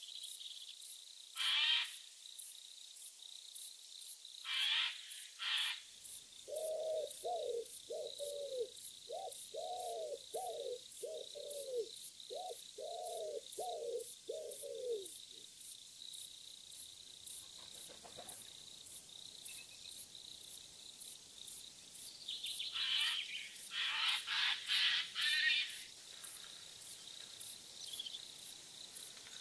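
Crickets chirping in a steady high-pitched pulse, about three chirps a second. Over them a bird gives a run of about a dozen low, evenly spaced notes, and other birds call in short high bunches at the start and again near the end.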